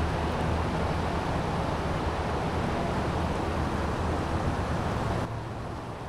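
Steady outdoor rushing noise with a low rumble, easing off a little near the end.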